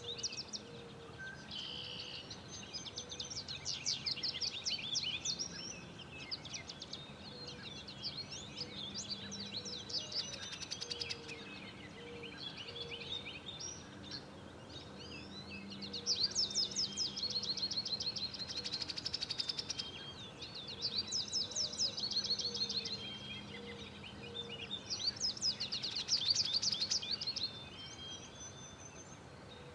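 Wild songbirds singing in overlapping chirps and rapid trills, with louder stretches about halfway through and again near the end.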